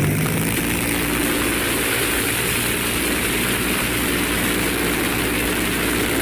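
The TMC Dumont motorcycle's six-cylinder Rolls-Royce Continental aircraft engine, an air-cooled flat-six, running steadily as the bike is ridden along the street.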